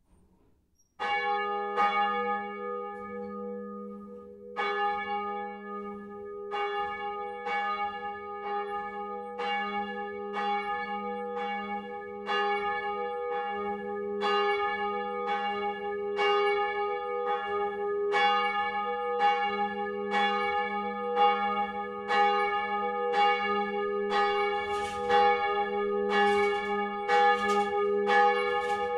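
A single 1948 Petit & Fritsen bronze church bell, hung on a straight headstock, swinging up and ringing on its own. The clapper first strikes about a second in. The early strokes are uneven, with a gap of a few seconds, then they settle into a steady stroke roughly every two-thirds of a second, each one ringing on into the next.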